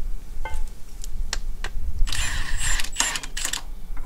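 Cordless impact wrench hammering in two short bursts, about two and three seconds in, loosening nuts off bolts on the front of an old tractor, after a few sharp clicks of the tool being handled.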